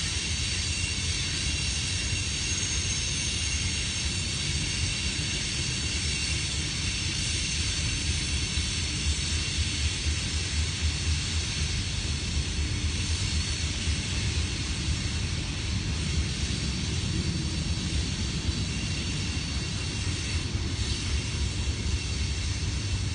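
Coal train's freight cars rolling past, a steady rumble of steel wheels on the rails.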